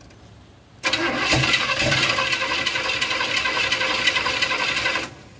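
Starter cranking the 1978 GMC Caballero's 400 small-block Chevy V8 on a cold start after long sitting. It cranks steadily for about four seconds without catching, then stops abruptly.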